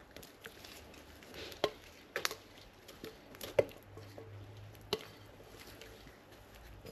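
Popping candy crackling in brownie batter: faint scattered crackles with a few sharper snaps, the loudest about three and a half seconds in.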